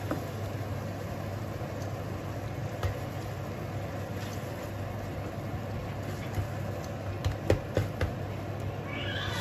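Tomato and scrambled egg cooking in a nonstick frying pan, with a steady low hum and hiss under it, while a spatula scrapes through the food and taps against the pan a few times, mostly in a quick cluster near the end.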